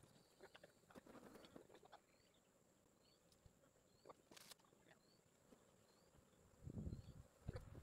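Near silence: faint outdoor ambience with a distant bird's short high chirps repeating about once a second, a faint steady high tone, and a few faint knocks.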